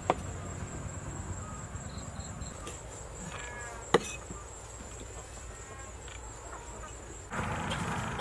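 Insects shrilling steadily at one high pitch, with two sharp knocks of a blade on a wooden chopping board, one just after the start and one about four seconds in; the background grows louder near the end.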